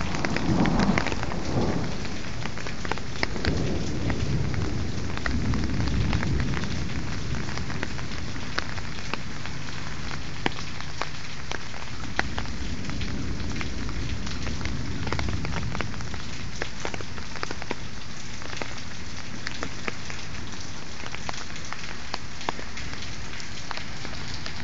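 Heavy rain pouring down in a thunderstorm, with many sharp drop ticks. A low roll of thunder rumbles through the first several seconds and fades, leaving the steady rain.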